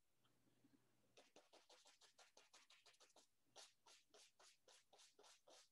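Faint, quick dabs of a small paintbrush against an oil-painted canvas, starting about a second in at about six a second and slowing to about three a second halfway through.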